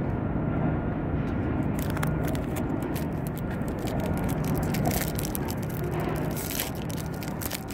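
A steady low hum of vehicle engines runs throughout. From about two seconds in, close crackling and scraping handling noise comes in on top.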